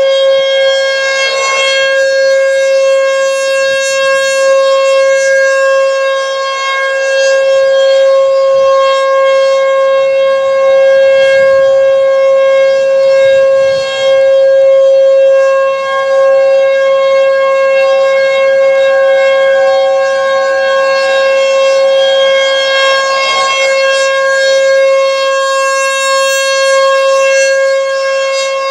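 American Signal Tempest T-128 rotating electromechanical outdoor warning siren sounding a monthly test, holding one steady pitch, its loudness swelling and dipping slightly as the head rotates.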